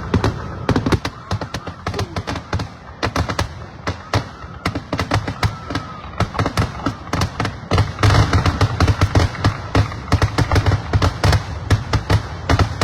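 Fireworks going off: a rapid string of sharp bangs and crackles, several a second, over a low rumble, with the densest volley about eight seconds in.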